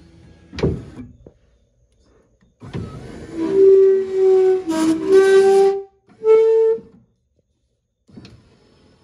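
A 1985 Monte Carlo's newly installed power window motor and regulator running the glass on a test, with a strong pitched squeak over the motor. A click about a second in, then one run of about three seconds that stops and a second short run just after.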